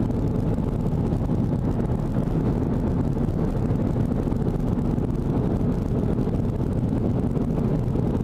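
Steady rumble of road and wind noise heard from inside a moving car.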